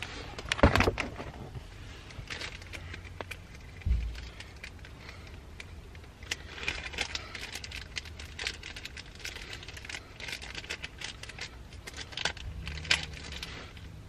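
Small items being handled: scattered clicks and light rattles with stretches of crinkly packaging rustle, a knock just under a second in and a dull thump about four seconds in.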